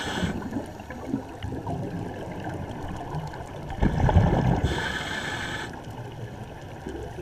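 Scuba diver breathing underwater through a regulator: a burbling rush of exhaled bubbles about four seconds in, followed by the hiss of an inhalation lasting about a second, with the tail of another inhalation hiss at the very start.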